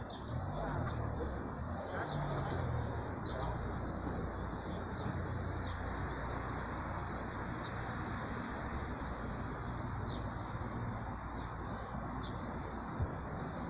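Several songbirds chirping in a morning chorus: many short, high calls and quick falling notes repeating throughout.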